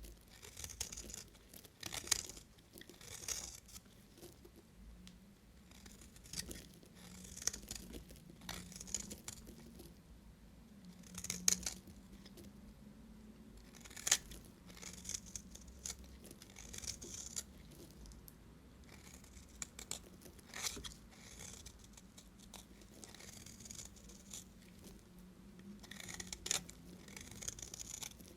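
Knife cutting through bars of soap: a series of crisp, crackling slicing strokes every second or two, with a few sharper cracks among them.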